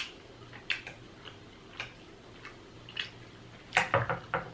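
Close-miked mouth sounds of someone eating sauce- and cheese-covered fries: wet smacking clicks while chewing, a few spaced apart, then a quick run of them near the end.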